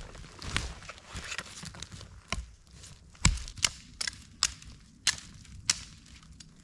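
Irregular series of about eight sharp snaps and knocks, the loudest a little before halfway.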